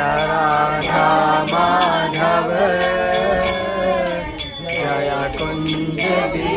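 Sankirtan: devotees singing a devotional chant together, with jingling hand percussion striking a steady beat.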